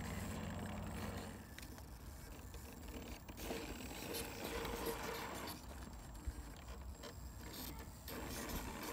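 Electric drive motor and gears of a radio-controlled scale rock crawler whining as it climbs, the whine shifting in pitch, with its tyres scraping over rock.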